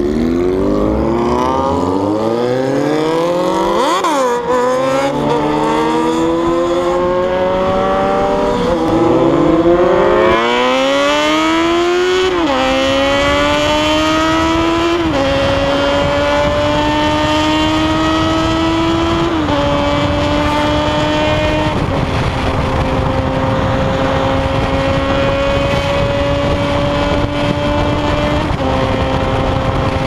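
Motorcycle engine accelerating hard through the gears: its pitch climbs and drops at each upshift, about 4, 9, 12 and 15 seconds in, then holds a near-steady high cruise with a few small dips. A steady rush of wind noise runs under it.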